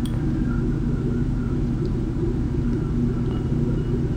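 Steady low electrical hum and rumble of background noise, even in level throughout.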